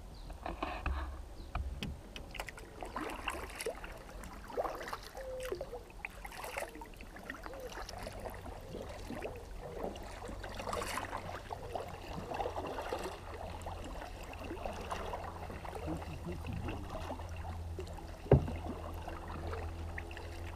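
Kayak paddle strokes: double-bladed paddles dipping and splashing in calm water, in an irregular rhythm, with a steady low rumble under them. A single sharp knock sounds about two seconds before the end.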